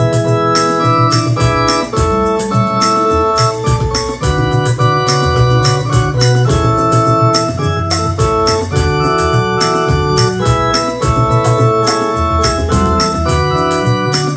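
Electronic keyboard playing a hymn arrangement in full, held chords over a moving bass line, on an organ-like voice. An even rhythm of ticks runs above the chords.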